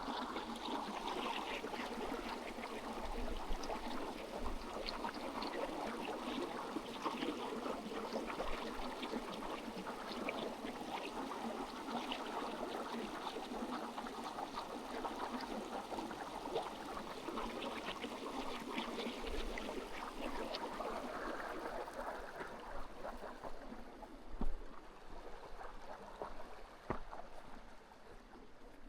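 Small stream running and babbling steadily, growing fainter over the last few seconds.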